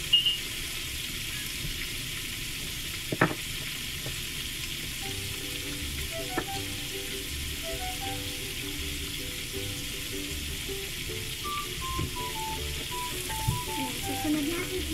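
Shrimp deep-frying in a saucepan of hot oil: a steady sizzle and bubbling, broken by a few sharp clicks. A faint, simple melody plays underneath.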